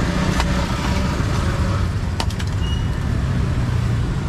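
Street traffic: vehicle engines running in a steady low rumble, with a few sharp clicks and knocks over it.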